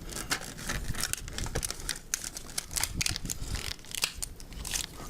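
Tape crinkling and tearing in quick, irregular crackles as it is pulled off and pressed on to seal up a pipe.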